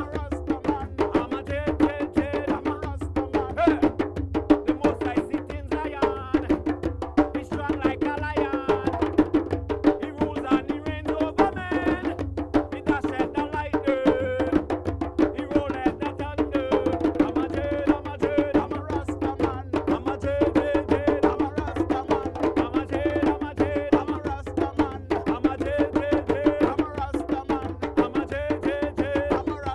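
Traditional drum ensemble playing a fast, steady rhythm: low drum beats under dense, sharp wooden clicks.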